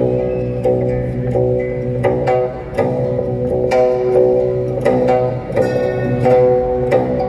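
Live post-rock band music: plucked string notes struck in a repeating pattern over sustained low bass notes.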